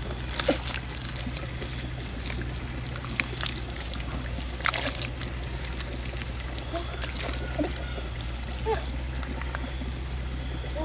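Hands digging and squelching in wet mud at the water's edge, with water trickling and small wet clicks and splashes scattered throughout. A thin steady high tone runs underneath.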